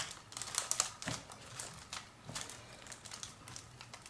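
Light crackling and rustling as a hand presses a crisp wafer sheet down into a paper-lined box, denser in the first second and fainter after.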